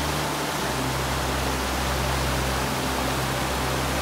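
Fast mountain river rushing over boulders: a steady rush of white water.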